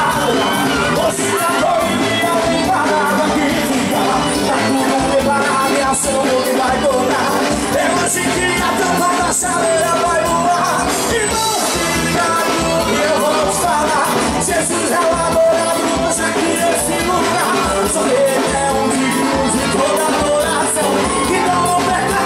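Live gospel band playing loudly through a PA, with a male lead singer singing over electric guitars, keyboards and drums.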